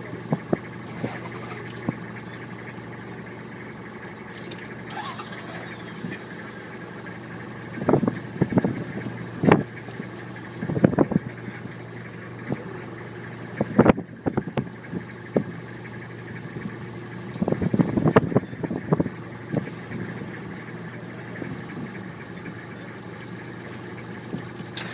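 A safari vehicle's engine idling steadily, with irregular louder bursts of noise over it about a third of the way in, just past the middle, and again about three quarters of the way through.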